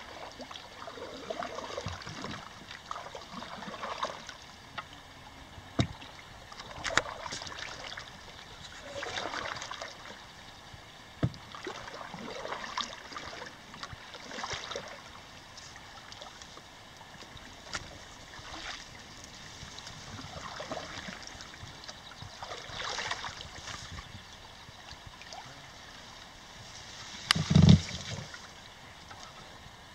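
Wooden canoe paddle strokes dipping and swishing through calm water every couple of seconds. A few light knocks, and a louder thump near the end.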